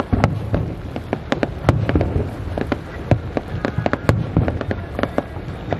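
Fireworks display: aerial shells and barge-fired effects bursting in a rapid, irregular string of sharp bangs and pops over a continuous low rumble.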